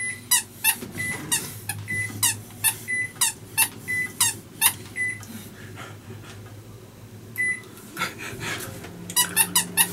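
Microwave oven running with a low hum after its heat button is pressed. Over the hum comes a rapid series of short, sharp chirps, about three a second, some with a brief beep. The chirps stop about five seconds in, and another quick cluster comes near the end.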